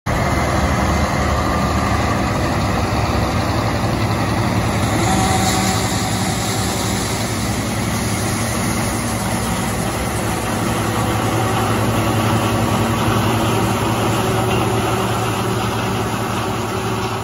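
Diesel engines of a Challenger 85C rubber-track tractor and a John Deere 9860STS combine running steadily under load, a continuous low drone, while the combine's unloading auger empties corn into the KINZE 450C grain wagon beside it.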